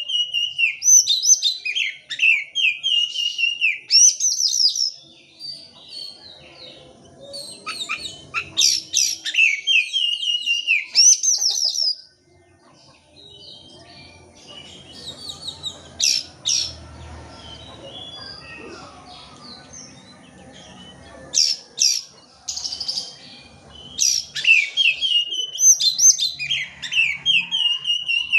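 Oriental magpie-robin (kacer) singing loud bouts of fast, sweeping whistled phrases and chattering notes, with a quieter, sparser stretch in the middle broken by a few sharp clicking notes. This is a full, energetic song of the kind played as a lure to set a silent kacer singing.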